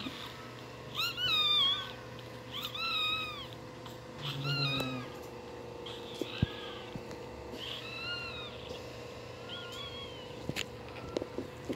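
Newborn shih tzu puppy crying: a series of short, high-pitched cries, each rising and then falling in pitch, coming every second or two.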